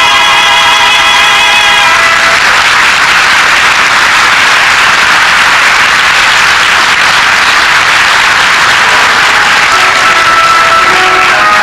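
Audience applauding for about nine seconds, after a held note with vibrato ends about two seconds in. Music with a melody starts again near the end.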